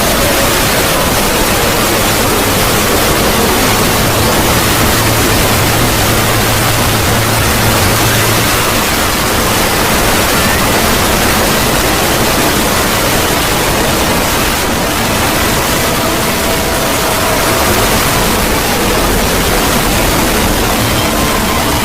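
A loud, steady wall of static-like noise, a harsh hiss spread evenly from deep rumble to high fizz: a synthesized 'void scream' sound effect. Faint steady tones show through the noise here and there.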